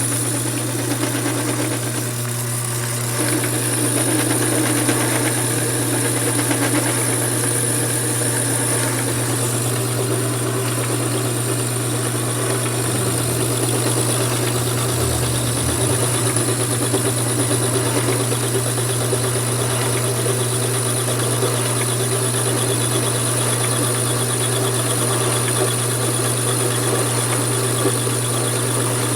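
Mini lathe's electric motor running steadily: a constant low hum with a steady high-pitched whine above it.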